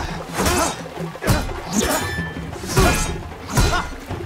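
Film fight-scene soundtrack: music under a run of sharp strikes, about one every three-quarters of a second, from a spear-and-shield duel.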